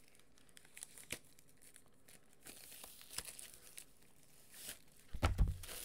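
Plastic wrapping of a comic-book multi-pack being torn open and crinkled as the comics are pulled out, with scattered crackles and a few louder handling bumps near the end.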